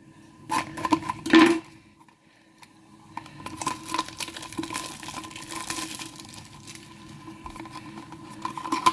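A small cardboard toy box being opened and its packaging handled by hand: a few sharp clicks about a second in, then from about three seconds on a continuous crinkling and clicking of cardboard and plastic.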